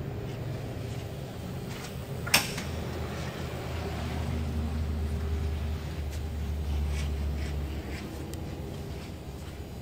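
The door latch of a 1956 Chevrolet 3100 pickup clicking open once, sharply, about two and a half seconds in, over a steady low rumble.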